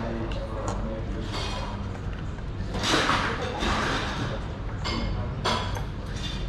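Coffee shop ambience: indistinct chatter of voices over a steady low hum, with a few short clinks and knocks.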